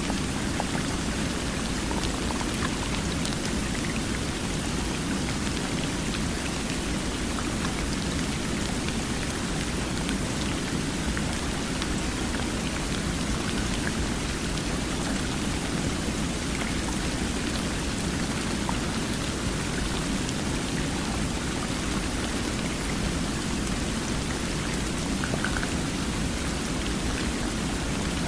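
Flowing water: a steady, unbroken rush of water with faint scattered ticks.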